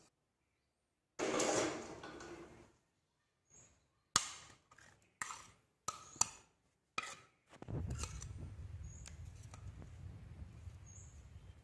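A metal spoon scraping fried food out of a wok, then a series of sharp knocks as the spoon taps against the wok and tray. A steady low hum starts about two-thirds of the way in.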